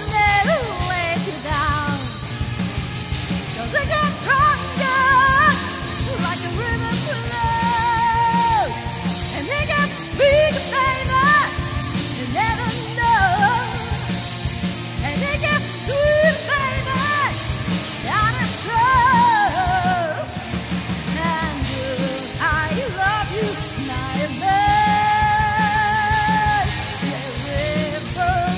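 A woman belting a rock song over a band with drums, holding long notes with vibrato. The drums and cymbals drop out for a moment about two-thirds of the way in.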